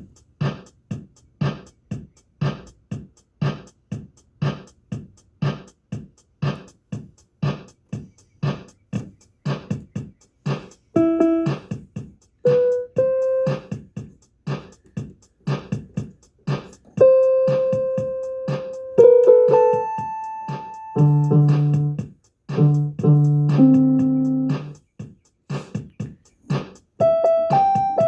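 An electronic keyboard's built-in rhythm pattern beats steadily, about two beats a second. From about eleven seconds in, single held notes and then low chords are played over it in a keyboard voice.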